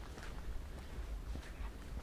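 Soft footsteps on a paved path, a few faint steps over a steady low rumble.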